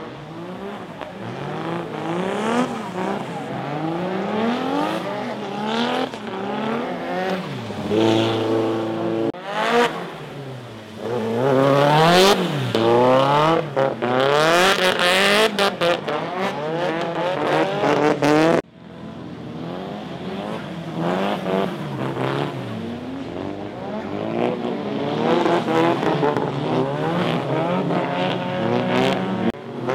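Drift cars' engines revving hard up and down as they slide through corners on wet tarmac, the pitch sawing with each stab of the throttle. It is loudest in the middle, and the sound cuts off abruptly about two-thirds through before building again.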